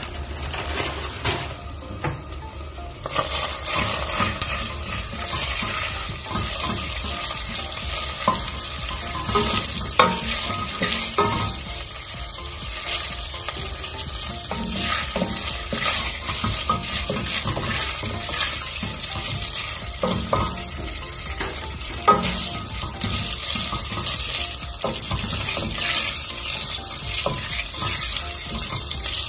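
Shariya vermicelli noodles frying in hot oil in a stainless steel pot: a steady sizzle that gets louder about three seconds in as the noodles are toasted brown. A wooden spoon stirs them, knocking against the pot now and then.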